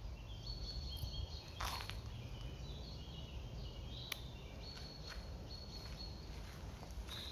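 Woodland birds singing: thin, high whistled notes held at several pitches, over a low steady rumble.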